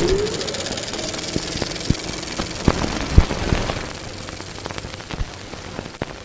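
Film projector running: a steady mechanical whir and hiss with scattered crackles and pops. The loudest pop comes about three seconds in, and the sound eases off a little after that.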